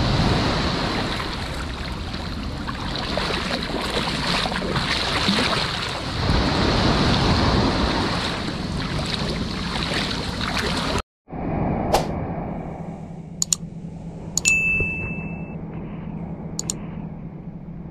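Surf washing around a camera held at the waterline: small waves breaking and water swirling close by, dense and fairly loud. It cuts off abruptly about eleven seconds in and gives way to quieter seaside ambience, with several sharp clicks and one short ding in the second half.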